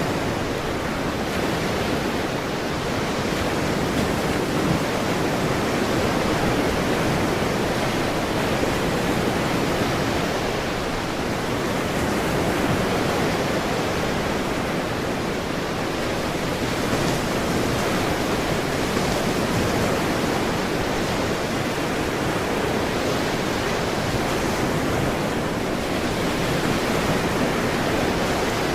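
Ocean surf: a continuous rushing wash of waves that swells and eases slightly every several seconds.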